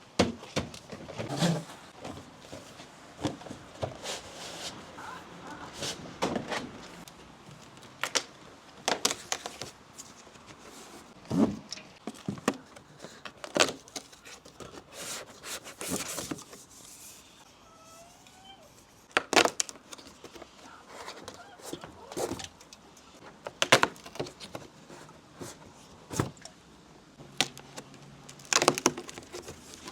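Cardboard advent calendar and its packaging being handled and opened: scattered taps, clicks and rustles, a few of them sharp and loud.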